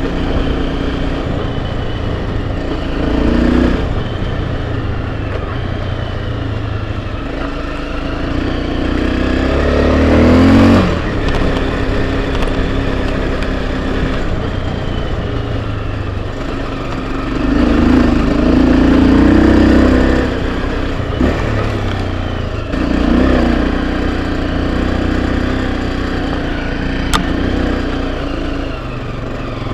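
Enduro motorcycle engine running under way, its pitch rising and falling with the throttle, with louder surges about a third of the way in and again about two-thirds through, and a few knocks late on.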